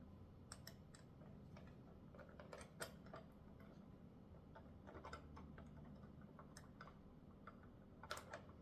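Faint, irregular small clicks and taps of small screws being fiddled into place and started into the bike stand's tool tray, over a low steady hum.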